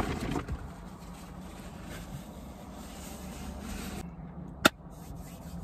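Rustling of a paper sandwich wrapper being handled, over a low steady hum, with one sharp click near the end.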